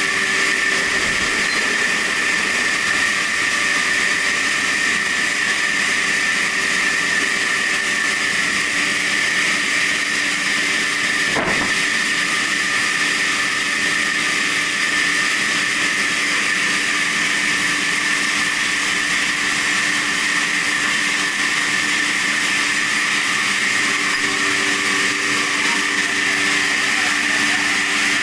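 Sawmill saw running steadily while sawing sheesham wood: a constant high hiss over a few steady tones, with a single sharp click about eleven seconds in.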